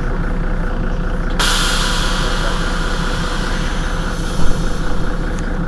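Mercedes-Benz Citaro city bus engine idling at a standstill. About a second and a half in, a sudden hiss of compressed air is let out and slowly fades. A loud thump follows about four and a half seconds in.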